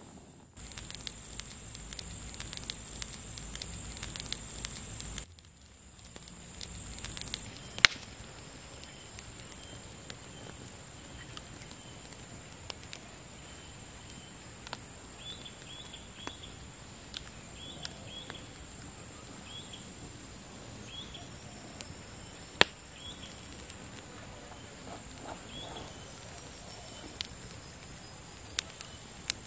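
Wood campfire crackling, with scattered sharp pops and two much louder snaps. For the first few seconds a low rush of air is heard as the embers are blown on to get the fire going.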